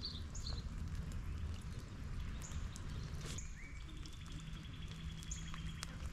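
Outdoor ambience: short bird chirps now and then over a steady low rumble, with a few light clicks.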